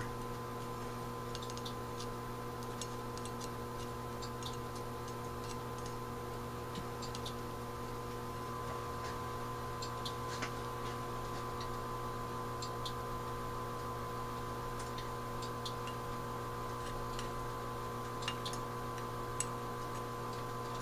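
Steady electrical hum, with faint small clicks scattered through it and a slightly stronger one about halfway through.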